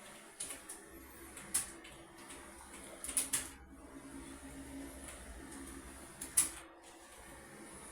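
Computer keyboard keystrokes, sparse and irregular: single clicks and short bursts of two or three, with pauses of a second or more between them. The loudest pair comes near the end.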